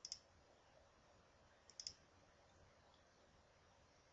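Computer mouse clicks stepping through moves on a chess board viewer: one click at the start and a quick pair about two seconds in, otherwise near silence.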